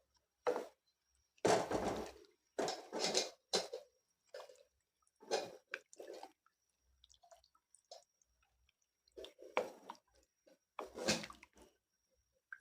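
A spoon stirring a wet tamarind curry in a cooking pot: short, irregular wet sloshing strokes with brief pauses between them.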